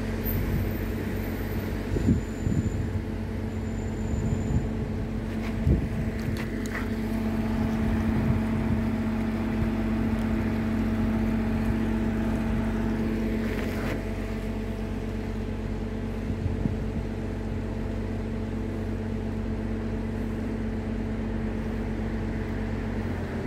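Small workboat's engine running steadily under load as it pushes a laden wooden barge, with a few short knocks about 2 and 6 seconds in.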